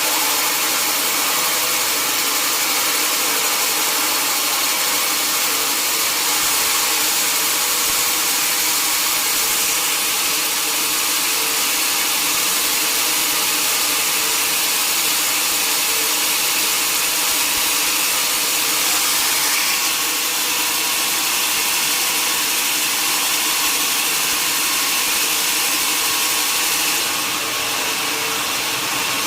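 Sawmill saw running steadily while cutting through a mahogany log, a continuous loud sawing noise with a constant hum under it. It eases slightly near the end.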